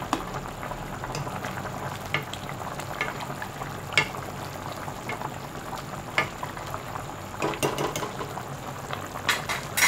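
Pot of chicken broth boiling, a steady bubbling with scattered pops, as the broth reduces and thickens toward a gravy. A few sharp knocks of a metal ladle against the pot stand out, the sharpest about 4 seconds in and near the end.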